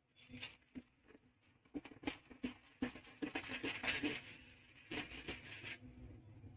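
Knife cutting through a crisp, oven-baked pav bun cube, a run of faint crackles and crunches as the toasted crust gives way. The crackles are sparse at first and come thick and fast from about two seconds in.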